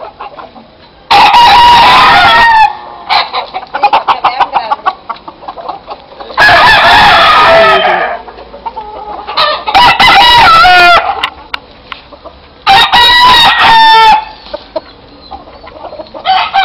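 Gamecocks crowing: four long, loud crows a few seconds apart, each lasting about a second and a half, with another crow starting at the very end.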